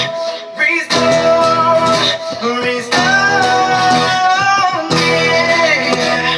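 Music: an acoustic guitar strummed in chords with a voice singing over it, the chords changing about every two seconds.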